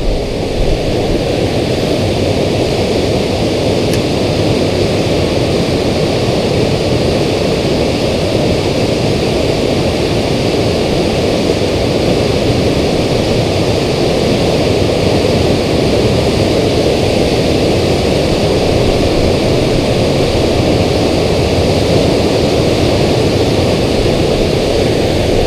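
Steady rush of river water pouring over a dam spillway.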